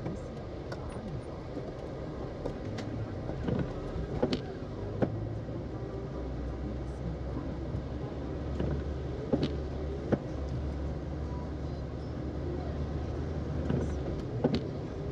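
A car driving, with a steady low engine and road drone that is heavier through the middle. Several short, sharp knocks and clicks sound at irregular moments.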